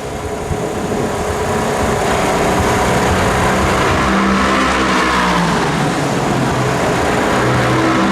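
Several racing car engines running at speed on the circuit, their overlapping engine notes rising and falling as the cars accelerate and shift.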